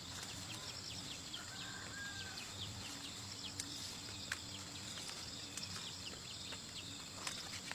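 Outdoor rural ambience: a steady high insect buzz with scattered small clicks and chirps, and a faint bird call about a second and a half in.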